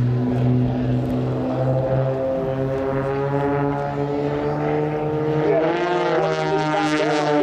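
Piston engines of two aerobatic propeller planes droning steadily in a vertical climb, with the pitch bending and shifting over the last couple of seconds as they roll over into a dive.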